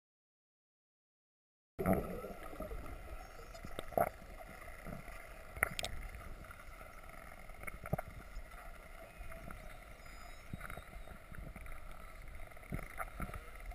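Silent for about the first two seconds, then underwater sound through a dive camera's waterproof housing: a steady low rumble and water noise, broken by a few sharp clicks and knocks.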